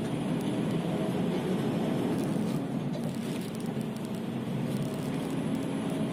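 Scania P360 dump truck's diesel engine running under way, heard inside the cab as a steady, even drone, with faint light clicks over it.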